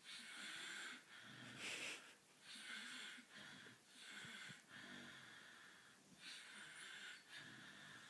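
Faint, rhythmic breathing: a hissy breath roughly once a second.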